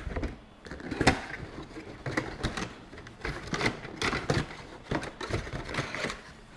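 Hands unpacking a parcel: an irregular run of clicks, taps and rustles of packaging being opened and handled.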